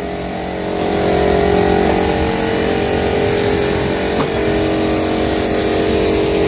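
Motor of a paint-spraying rig, the air supply for a hose-fed spray gun, running steadily: a constant hum with several held tones under an even hiss.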